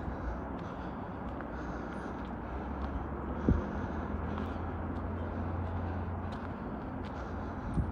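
Outdoor background with a steady low rumble of distant traffic, and faint footsteps on a dirt trail. One sharp thump comes about three and a half seconds in.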